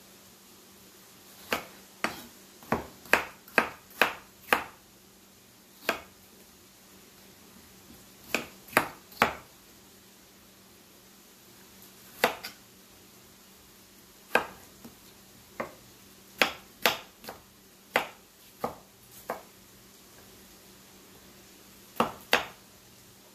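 Knife cutting green tomatoes on a wooden cutting board: sharp, irregular knocks of the blade striking the board, in short runs of several cuts separated by pauses.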